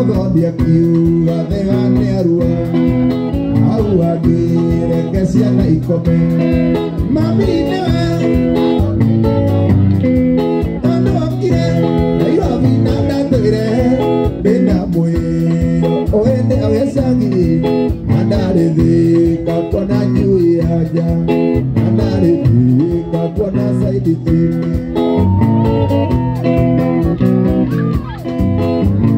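Live mugithi music: guitar playing over a steady drum kit beat.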